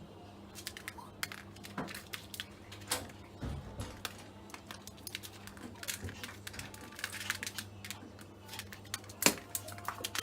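Teacup poodle playing with a bottle, knocking it about in a string of irregular clicks, taps and crinkles, the sharpest near the end, over a steady low hum.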